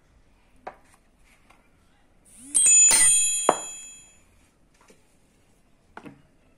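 A bell-like metallic ring, struck twice in quick succession and fading over about a second and a half. Soft rustles of a stiff paper sheet being handled come before and after it.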